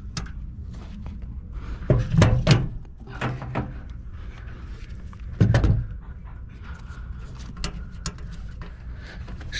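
Knocks and thumps of metal parts and tools being handled inside a fan coil unit's sheet-metal cabinet: a cluster of thumps about two seconds in and another heavy thump about halfway through, with lighter clatter between.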